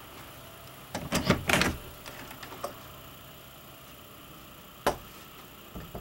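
A cluster of sharp knocks and clicks about a second in, a few faint ticks after it, then a single sharp click near five seconds and a softer one just before the end.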